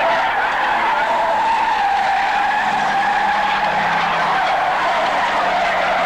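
Several banger-racing saloon cars racing round the oval together, engines running hard with a steady high note that sinks slowly.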